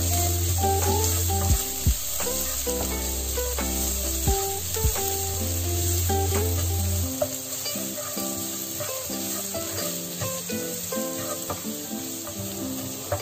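Diced carrots and garlic sizzling in oil in a nonstick wok while being stirred with a slotted spatula, which scrapes and knocks against the pan a few times in the first half.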